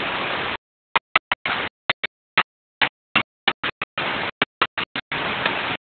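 Steady rushing of flowing water, broken up by many sudden complete dropouts in the recording from about half a second in, so that it comes through in short choppy fragments.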